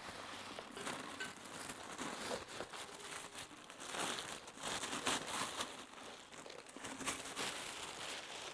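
Plastic packaging crinkling and rustling as it is handled and pulled off a watering can, with a few sharper crackles along the way.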